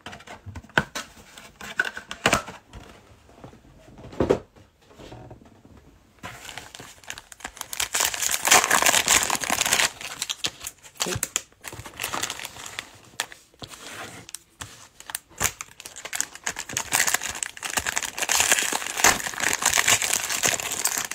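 Plastic wrappers of Panini Mosaic football card packs being handled and torn open. A few light taps and rustles come first, then steady crinkling and tearing of the wrappers starts about six seconds in.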